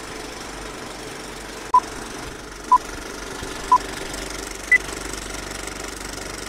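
Old-film intro sound effect: a film projector's steady clatter and hiss, with four short countdown beeps about a second apart, the first three at one pitch and the last one higher.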